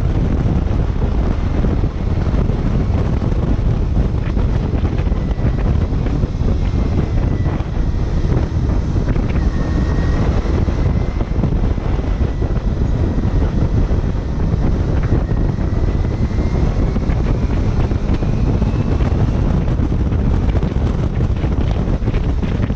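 Wind buffeting hard on the microphone while a Kawasaki Ninja 250 is ridden at road speed, with its parallel-twin engine running underneath. A faint thin whine wavers up and down in pitch through the middle.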